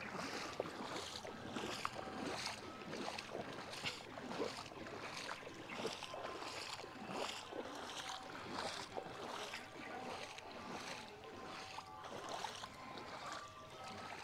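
Floodwater splashing and sloshing in a steady rhythm, roughly one swish every two-thirds of a second, as of something moving through the water.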